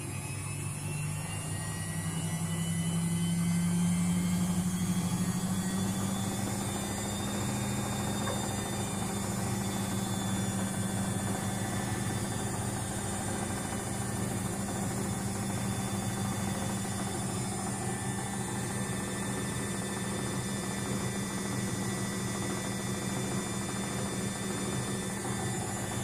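Luxor WM 1042 front-loading washing machine in its spin cycle with an unbalanced load. The motor's whine rises in pitch over the first few seconds as the drum speeds up, then holds steady.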